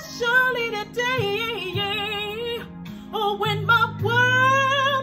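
A woman singing a gospel ballad over instrumental accompaniment, drawn-out notes with vibrato and no clear words, ending on a long held note that starts about four seconds in.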